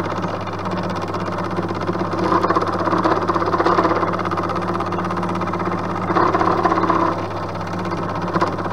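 Milling machine running with a flat-bottomed endmill radial-milling a metal workpiece: a steady motor hum under the noise of the cutter taking metal. The cutting gets louder twice, about two to four seconds in and again around six to seven seconds.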